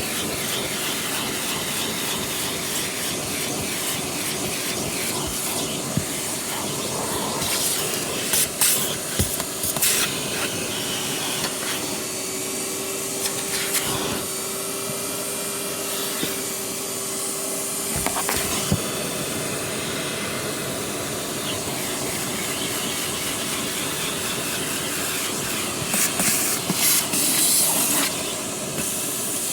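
Vacuum cleaner running steadily with a constant whine and a rush of air, broken by bursts of gritty crackling and rattling as grit and debris are sucked up the nozzle, about a third of the way in, midway, and near the end.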